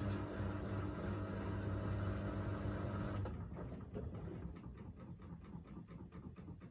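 Miele Navitronic W3985 WPS washing machine running with a steady motor hum that cuts off about three seconds in, after which the drum coasts down with a run of light, fading clicks and rattles. Near the end of the Express 40° programme this is most likely the final spin stopping.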